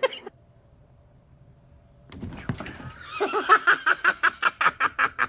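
A person laughing hard in quick, evenly spaced, pitched bursts of about five a second, starting about two seconds in after a brief lull.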